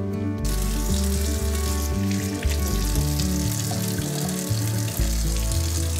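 Steady hiss of water running from a kitchen tap into the sink while hands wash at the basin. It starts about half a second in and goes on under soft background music.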